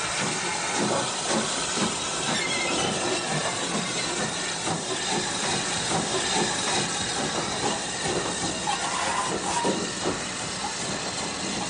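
Caledonian Railway No. 123, a 4-2-2 single-driver steam locomotive, on the move: a steady hiss of steam with irregular knocks and clatter from the engine and train on the rails.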